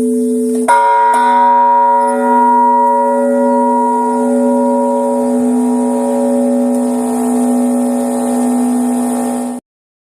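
A 678 kg bronze church bell, hung fixed rather than swinging, already ringing and struck again less than a second in, then sounding on with a steady low hum and slowly pulsing, fading overtones. The sound cuts off suddenly near the end.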